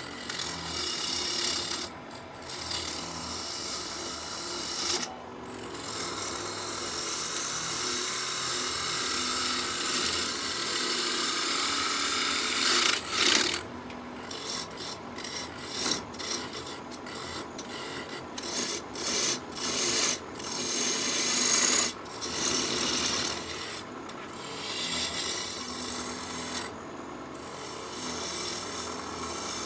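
Lathe gouge cutting a spinning locust-wood blank: a continuous scraping hiss of shavings coming off the wood. In the second half it is broken by many short gaps as the tool is lifted and set back on.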